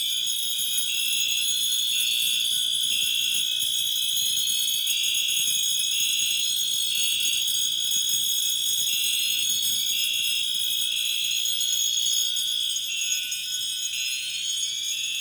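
Several fire alarm sounders going at once: a steady high-pitched tone, a tone that sweeps upward over and over, and a third tone pulsing on and off.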